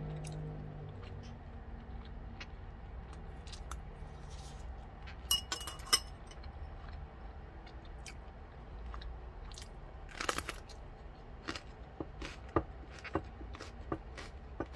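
Close-up chewing and eating noises from a mouthful of food, with scattered small clicks. About five to six seconds in, a metal spoon and chopsticks clink against a ceramic bowl with a brief ringing.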